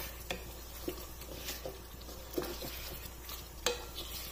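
Wooden spatula stirring mutton pieces in a yogurt gravy in a non-stick karahi, with irregular scrapes and knocks against the pan over the sizzle of the frying mixture.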